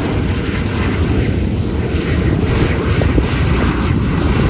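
Jet engines of a Delta airliner landing, heard at close range: a loud, steady rumbling noise that grows slightly louder as the plane passes and touches down.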